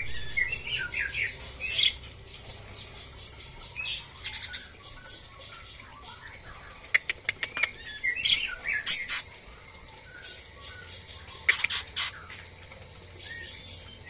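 Caged songbirds at a white-rumped shama breeding farm chirping and calling, with short squawks and spells of fast, pulsing high chatter, and a few sharp clicks in the middle.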